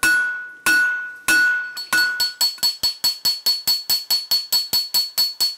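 Blacksmith's hand hammer striking a red-hot steel bar on the edge of the anvil, forging a set down for a tong nib. Three heavy ringing blows come first, then a quick, even run of lighter strikes, about five a second, with a higher ring.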